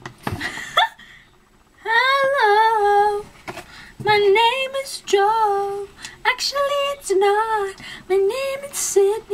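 A woman singing solo with no accompaniment, in short phrases of long held notes separated by brief pauses, including a pause about a second in.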